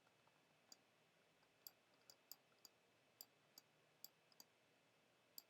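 Near silence, broken by about a dozen faint, light clicks at irregular intervals.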